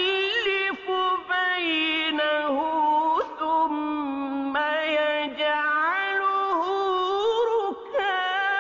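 Melodic Quran recitation: a single voice holds long, ornamented notes that slide and waver in pitch, pausing briefly between phrases.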